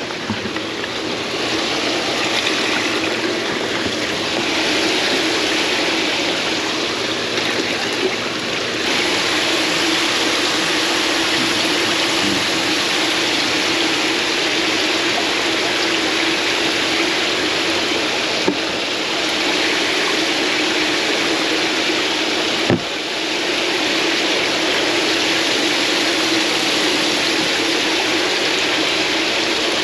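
Water running and splashing steadily in a bait shop's live-shrimp tank, with a pump's steady hum under it.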